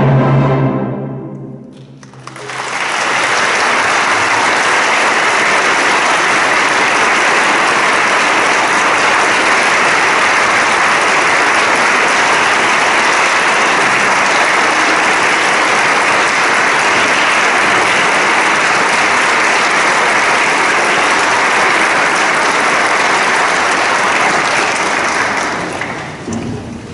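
The orchestra's final chord dies away in the hall's reverberation, then the audience breaks into steady applause that lasts some twenty seconds and tails off near the end.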